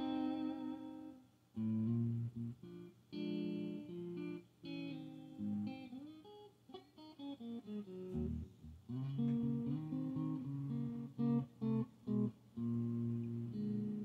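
Electric guitar played at low, bedroom volume through a Fender Deluxe Reverb amplifier and Joyo American Sound pedal, picking single notes and short chords with a few string bends.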